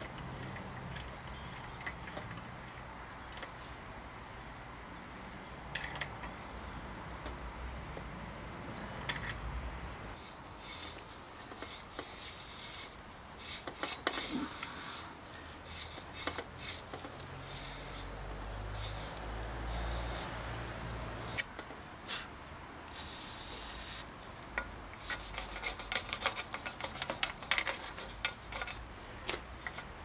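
Hand tools scraping and rubbing on metal bicycle parts, in irregular rasping strokes that come thicker and faster toward the end.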